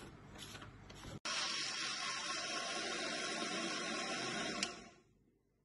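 Electric mixer grinder (mixie) running at speed, blending a liquid mix of paan leaves, milk and cream, with a steady whirr. It is switched off with a click near the end and dies away within half a second. A second of faint handling noise comes before it.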